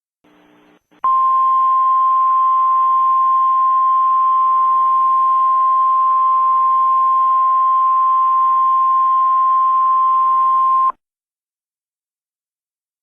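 Emergency alert attention signal: one steady high tone over a background hiss, held for about ten seconds and then cut off sharply.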